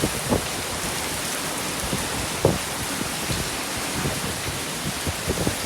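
Steady rain, with a couple of brief low thumps, one just after the start and one about halfway through.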